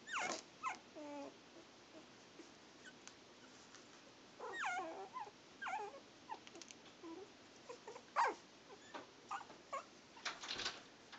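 Young miniature schnauzer puppies whimpering and squeaking: many short, high calls that slide down in pitch, scattered through, with a short burst of scratchy clicks near the end.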